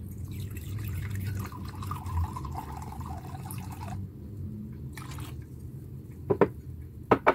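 Vinegar poured from a bottle into a glass measuring jug, a steady trickle for about four seconds, then tipped from the jug into a stainless steel saucepan. Two short, sharp, loud taps come near the end.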